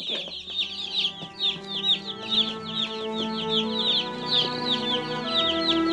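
Dozens of day-old chicks peeping constantly in a brooder, a dense run of high, short, overlapping peeps. Background music with held notes fades in under them and grows louder toward the end.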